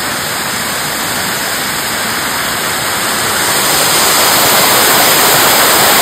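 Waterfall: a steady rush of falling water, getting a little louder in the second half.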